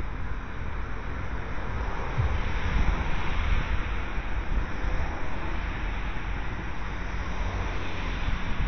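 Wind buffeting the microphone, a gusty low rumble over a steady hiss of outdoor background noise.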